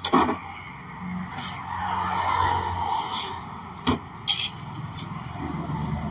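Sharp knocks of a knife and plastic cutting board against a steel counter, once at the start and twice about four seconds in. Under them is a steady hiss of passing road traffic that swells in the middle.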